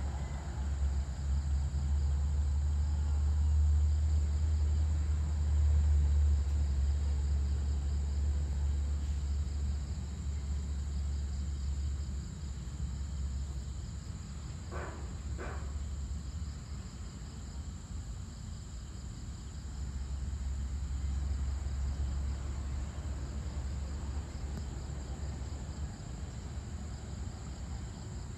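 Evening insects, crickets among them, chirping steadily over a low rumble that swells and fades, with two short sounds close together about halfway through.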